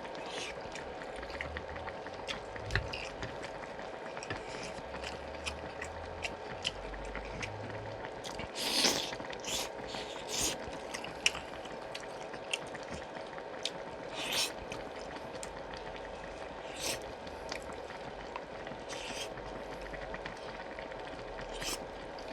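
Wet eating sounds: a person chewing and slurping pork-bone soup (gamjatang), with several short, louder slurps scattered through. A steady faint hum runs underneath.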